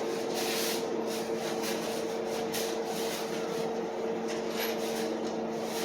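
Hands rustling and handling furniture-assembly hardware and parts in irregular bursts, over a steady electrical hum.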